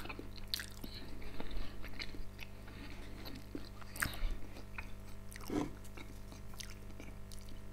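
A person chewing a mouthful of food with the mouth closed, with scattered small wet clicks and smacks.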